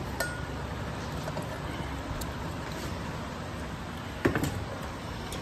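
Steady whooshing of an electric fan, with a single light knock about four seconds in.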